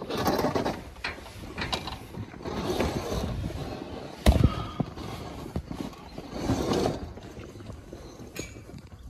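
Irregular clattering and thumping on a metal livestock trailer as trapped axis deer are let in, with one sharp bang about four seconds in.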